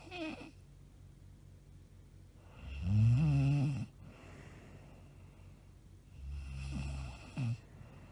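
A woman snoring heavily in her sleep, one snore on each breath about three and a half seconds apart. The loudest snore, a buzzing one with a wavering pitch, comes about three seconds in, and a weaker one around six seconds in ends with a short catch.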